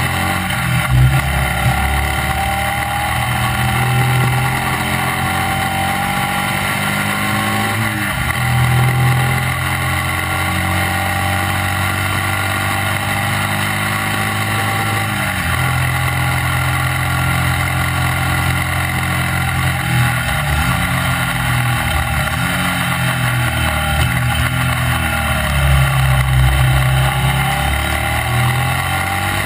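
Classic racing sidecar outfit's motorcycle engine running hard on track, its pitch climbing steadily and then dropping back as it is shifted or throttled off: about eight seconds in, about fifteen seconds in, and three quick times in a row past the twenty-second mark. A steady rush of wind and tyre noise from the onboard microphone runs under it.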